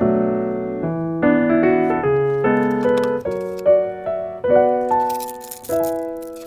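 Background piano music, a light melody of sustained notes, with a brief rustle about five seconds in.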